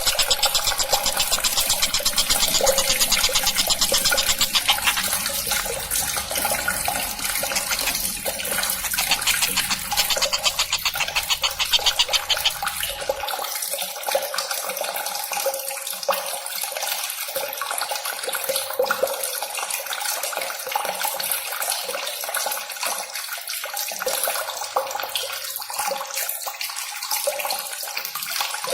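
Bird-song training track of the tengkek buto (stork-billed kingfisher): rapid, dense high calling over a steady rush of running water. A low hum underneath cuts off about halfway through.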